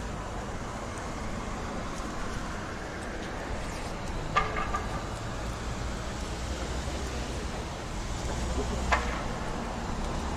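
City street ambience: a steady hum of traffic with a low rumble, broken by a short pitched sound about four seconds in and a brief sharp sound near the end.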